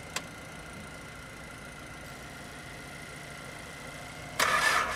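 A low steady hum with a faint high whine and a single click just after the start; about four and a half seconds in, a Mitsubishi Pajero's starter suddenly engages and the engine is cranked with a loud clatter, a cold start after four months standing.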